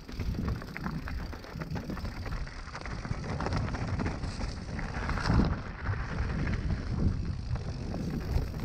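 Mountain bike ridden over a rough trail: wind buffeting the microphone and tyres rolling over uneven ground, with frequent short rattles and knocks from the bike over bumps.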